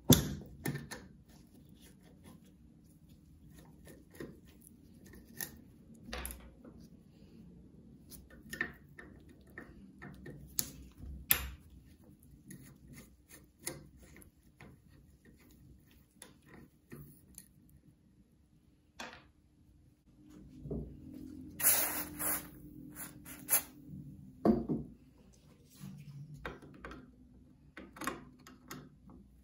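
Screwdriver and small screws clicking and scraping against the cast-iron motor housing of a Hitachi bench grinder as the cord clamp and switch plate screws are worked loose, in scattered short taps. About two-thirds of the way through there is a louder hissy noise lasting about two seconds, followed by a thump.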